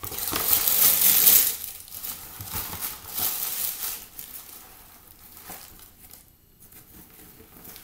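Shoebox tissue paper crinkling and rustling as it is crumpled and pulled out of a cardboard shoebox, loudest in the first two seconds, then a few shorter rustles that die down.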